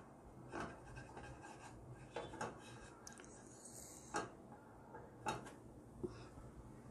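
Plastic spatula scraping and knocking faintly against a non-stick frying pan as it is slid under a pancake, lifted and flipped, a handful of short scrapes and taps with the sharpest about four and five seconds in.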